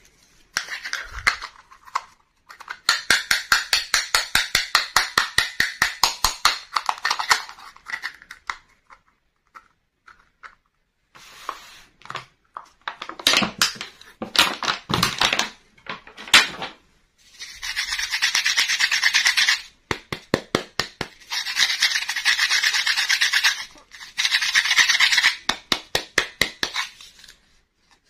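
Fingers rubbing and scratching a clear plastic blister pack and small plastic toy dollhouse pieces: runs of quick scratchy strokes, several a second, broken by pauses, with longer rasping stretches in the second half.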